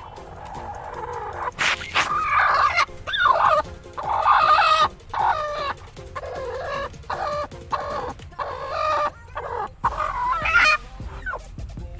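Naked neck hen, broody on her nest, giving a string of loud squawking calls from about a second and a half in, as a hand reaches under her: a broody hen protesting at being disturbed on her eggs.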